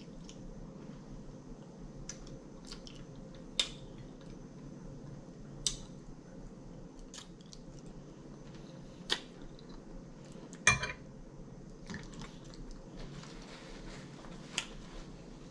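Quiet eating sounds: a handful of scattered sharp clicks and clinks of a fork against dishes, the loudest about two-thirds through, over a steady low room hum.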